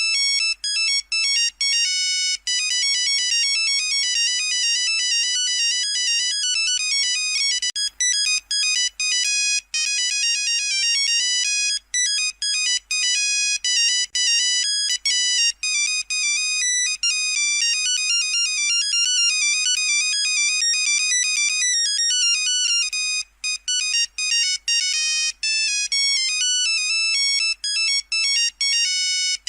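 Nokia 3310 monophonic ringtone playing: a fast tune of high beeping notes, broken by short gaps between phrases.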